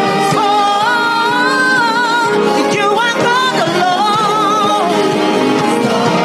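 Gospel praise-and-worship song: a singer holds and bends long notes with vibrato over steady sustained instrumental accompaniment.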